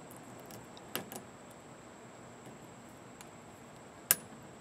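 A few small sharp metallic clicks, a close pair about a second in and a louder one near the end, as a flat retaining ring is worked from groove to groove along a 1970 Honda CB450 fork tube.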